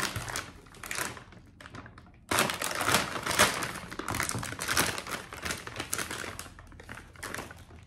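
Clear plastic bag of cassava roots crinkling as it is handled and opened, with a short pause about two seconds in.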